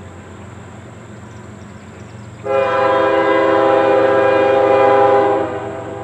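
Air horn of a CSX GE diesel freight locomotive sounding one long blast of about three seconds, several notes together as a chord, starting about two and a half seconds in. Under it runs the low steady rumble of the approaching train.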